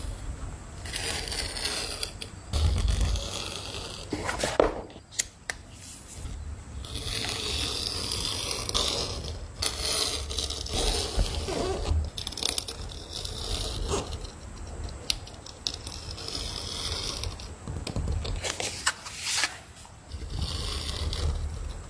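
Hand-crafting work sounds: stretches of scraping and rubbing of tools on material, broken by a few sharp clicks and a dull thump about three seconds in.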